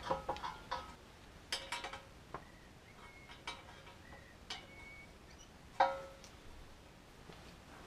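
A metal spanner clicking and tapping on the brass nut holding the fuel tank of a British Seagull outboard as the nut is nipped up. Light metallic clicks, some ringing briefly, several close together at first and then about one a second.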